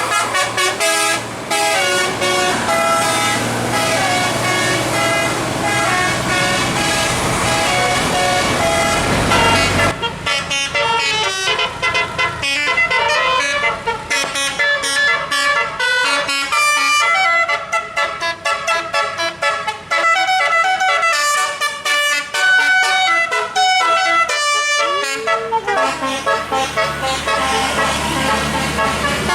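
Bus's multi-trumpet musical air horn ('telolet') playing a tune of stepped notes. The notes are held longer at first, then come in a quicker run of short blasts from about ten seconds in.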